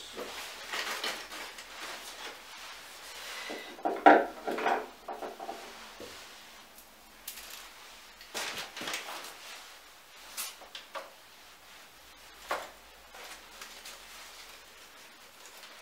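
Hands working leaves, stems and twigs into a flower arrangement, with rustling and light knocks of hard objects, a louder clatter about four seconds in and a few sharp clicks later.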